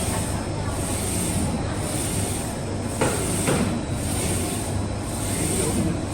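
UV LED flatbed printer running: a steady machine hum and hiss, with a swish about once a second as the print carriage sweeps, and a single click about three seconds in.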